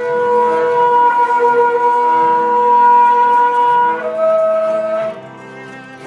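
Ram's-horn shofar blown in one long, steady note for about four seconds, then stepping up to a higher note that breaks off about five seconds in. Soft background music carries on after it stops.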